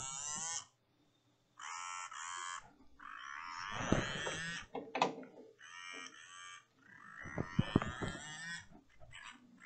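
Small toy-car DC motor driven by an ESP32 through a TB6612FNG motor driver running a test program: it whines in short spells of about a second with pauses between, the pitch rising and falling as the code ramps the speed up and down and switches direction. A few light knocks in the second half.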